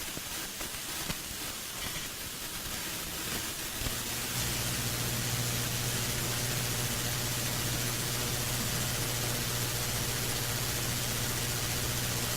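Hiss of dead air from a radio station knocked off the air by an earthquake; about four seconds in, a steady low electrical hum comes in over the hiss and stays.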